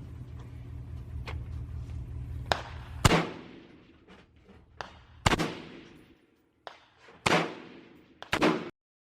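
Gunshots: about five loud shots roughly two seconds apart, each trailing a short echo, with a couple of fainter pops between them. A steady low hum stops at the loudest shot about three seconds in, and the sound cuts off abruptly near the end.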